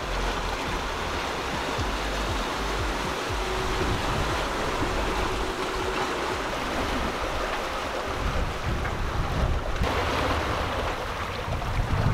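Sea water rushing and waves washing along a sailboat's hull as it runs downwind in a rough sea, with wind. A louder surge near the end.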